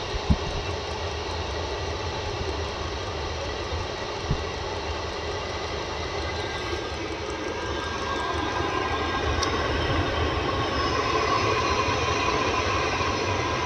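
8 kW diesel air heater running on its test start: a steady whoosh of its blower and burner that grows a little louder about eight seconds in.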